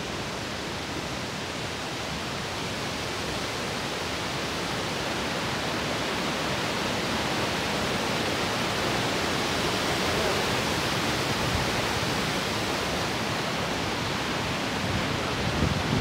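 Steady rushing hiss of a large waterfall, Borhill Falls, with no distinct events, growing gradually louder over the first ten seconds or so.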